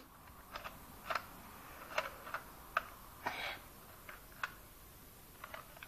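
Plastic View-Master-style toy viewer's lever being pushed to advance its picture reel, giving a series of light clicks at an uneven pace.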